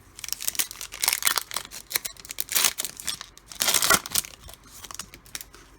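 Trading-card pack wrapper being torn open and crinkled: a run of ripping and crackling, loudest about two and a half and four seconds in.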